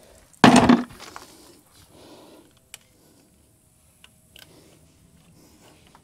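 A short, loud clatter about half a second in, then a few faint clicks and light knocks from handling a multimeter test lead and its alligator clip on the backhoe's wiring.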